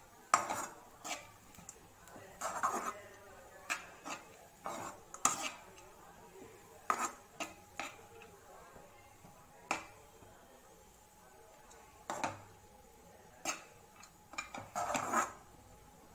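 A spatula scraping and clinking against a kadai as cooked rice is mixed and turned in it, in irregular strokes a second or two apart.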